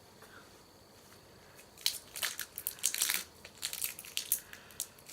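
Plastic snack-bar wrapper crinkling and crackling in quick, irregular bursts, starting about two seconds in after a short quiet spell.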